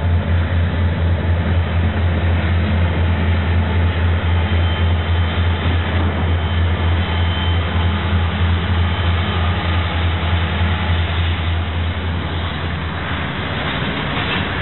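Union Pacific diesel locomotives passing at close range with a freight train: a deep, steady engine drone over the rumble of the train. About thirteen seconds in, the drone fades and the rolling noise of the rail cars takes over.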